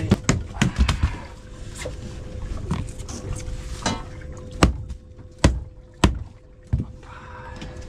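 Scattered sharp knocks and thumps, about eight of them, over a faint steady hum: fish and gear being handled on a fishing boat.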